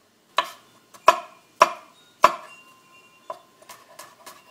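Knife chopping garlic on a cutting board: four heavy chops about half a second apart, then lighter, quicker taps in the second half.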